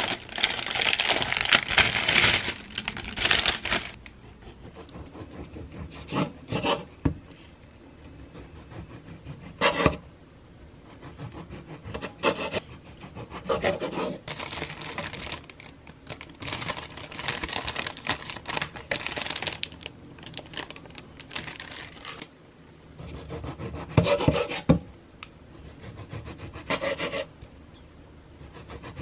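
A plastic bread bag crinkles loudly for the first few seconds as a loaf is unwrapped. After that, a serrated bread knife saws through soft bread in short rasping strokes on a wooden cutting board, with a few sharp knocks of the knife or bread on the board.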